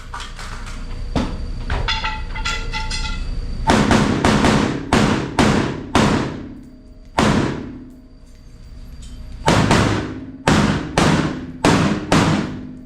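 AR-15 rifle firing 5.56 rounds on an indoor range: after a few lighter reports comes a string of quick shots about half a second apart. A pause of a couple of seconds follows, then a second fast string. Each shot echoes off the range walls.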